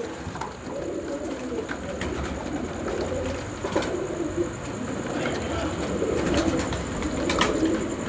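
Domestic pigeons cooing, several low wavering calls overlapping without a break, with a few sharp clicks, the clearest about four and seven seconds in.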